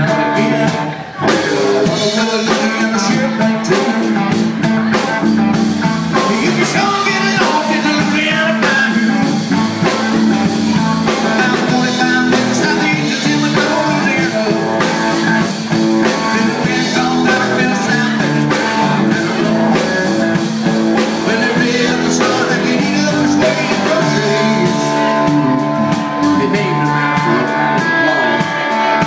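Small live band playing rock and roll: guitars and a drum kit with a sung vocal, the drums keeping a steady beat, with a short break in the sound about a second in.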